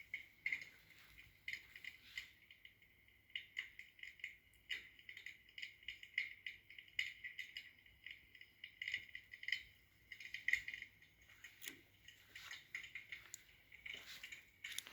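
Electric fireplace's built-in wood-crackling sound effect: quiet, irregular pops and crackles of burning logs played through the unit's small speaker.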